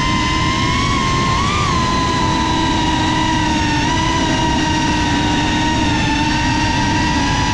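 Motors and propellers of a Cinelog 35 FPV cinewhoop drone whining at a nearly steady pitch in cruising flight, with a brief rise in pitch about a second and a half in. A low, rough rushing noise runs underneath.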